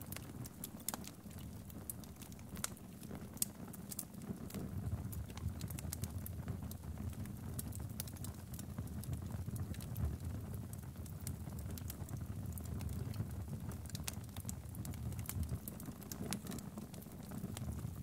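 Wood fire in a fireplace crackling: irregular sharp pops and snaps from the burning logs over a steady low rumble of the flames.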